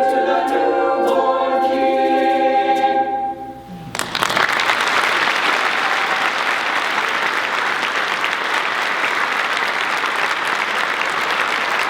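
A cappella high school madrigal choir holding a final chord that dies away about three and a half seconds in; audience applause breaks out a moment later and carries on steadily.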